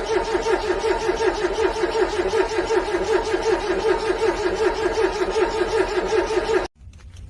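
Car engine cranking on the starter in freezing cold without catching: an even, rhythmic cranking with no change in pace, which stops abruptly about six and a half seconds in.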